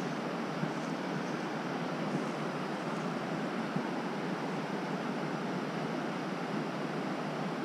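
Shallow rocky river running over stones: a steady, even rush of water.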